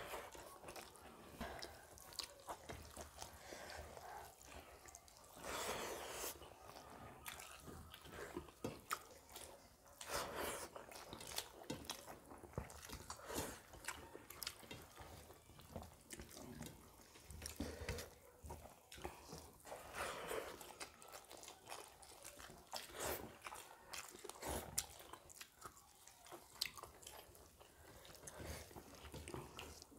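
Faint close-up eating sounds: chewing, with wet squishing and small irregular clicks and smacks as rice and curry are mixed and eaten by hand from steel plates.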